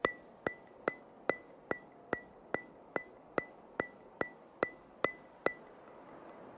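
Evenly spaced sharp ticks, about two and a half a second, each with a brief high ping like a metronome. They stop about a second before the end.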